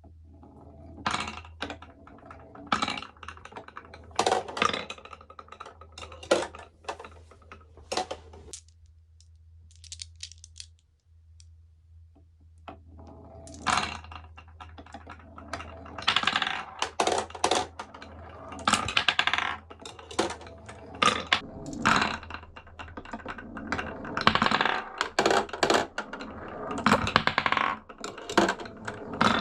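Glass marbles rolling and clicking down toy marble-run slopes: many quick clicks and short rattles, a pause of a few seconds about a third of the way in, then a denser run of clatter. A low steady hum lies under the first third.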